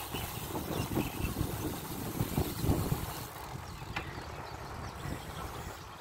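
Wind buffeting the microphone of a camera riding on a moving bicycle: an irregular low rumble that eases about three seconds in.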